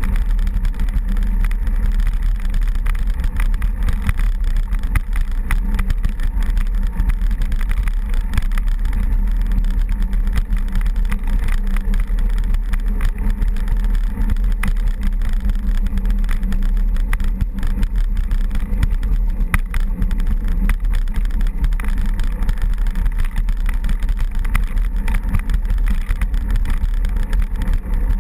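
An off-road vehicle's engine running steadily on a dirt trail, with heavy wind rumble on the microphone and scattered rattles and clicks.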